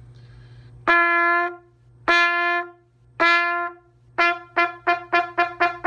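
Trumpet playing a note above the low C starting note, produced with faster air and a tighter lip buzz. Three short held notes are followed, about four seconds in, by a quick series of short tongued notes on the same pitch, about three a second.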